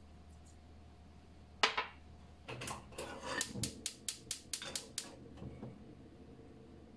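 A sharp knock, then a gas stove burner being lit: a quick run of about eight igniter clicks, some five a second, as the flame catches.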